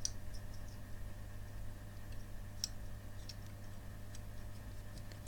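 Faint, scattered small ticks over a steady low hum from an opened laptop hard drive whose bent head arms won't let it start reliably.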